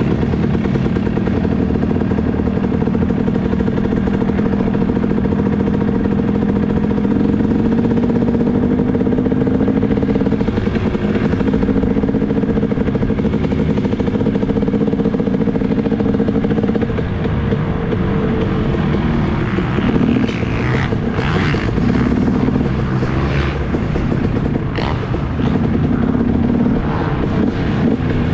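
2018 KTM 250 SX two-stroke motocross bike with an expansion-chamber pipe and Pro Circuit R-304 shorty silencer, running at steady low revs while ridden slowly. In the last third the engine note varies more, and there are several sharp clicks.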